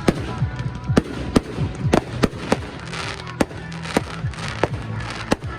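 Fireworks shells bursting in quick, irregular succession, a dozen or so sharp bangs, with a stretch of crackling about three seconds in.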